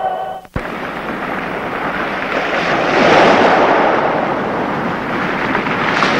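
A choir's singing cuts off about half a second in. After a brief gap comes the steady rush of sea surf breaking on rocks, swelling about three seconds in.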